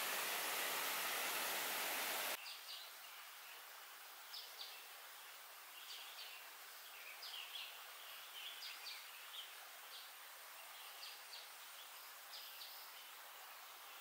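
Steady rushing of running water, such as a stream or small waterfall, that cuts off abruptly about two seconds in. Quieter woodland ambience follows, with scattered short, high chirps from birds in small irregular groups.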